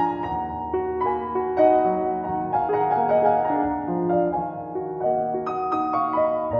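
Background piano music: gentle notes played over held chords.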